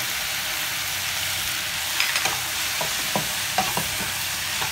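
Sliced okra sizzling in a pan, stirred with a wooden spatula that knocks against the pan a few times from about two seconds in.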